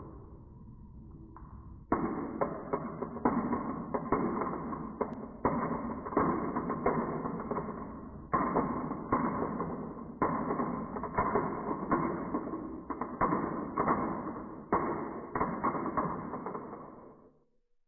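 Marbles rolling and clattering down a wooden marble run, with many irregular knocks and taps. It starts abruptly about two seconds in and dies away shortly before the end.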